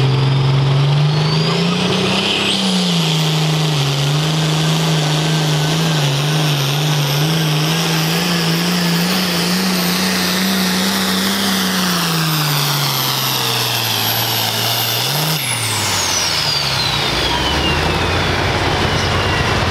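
Pulling tractor's engine at full throttle through a pull, with a very high turbo whine that climbs within the first few seconds and holds. About fifteen seconds in the engine comes off the throttle and the whine winds down as the run ends.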